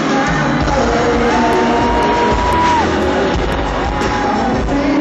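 Live pop concert music, loud through a hall's sound system, with a voice holding one long high note that drops away at the end, then a shorter note about a second later.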